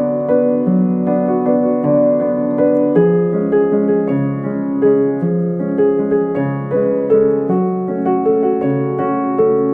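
Background piano music: a gentle, steady stream of notes.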